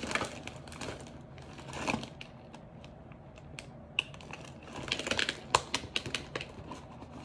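Small makeup items clicking and clattering against each other as a hand rummages through a makeup bag, with plastic packaging crinkling. A sharp click comes about four seconds in, and a quick run of clicks around five to six seconds in.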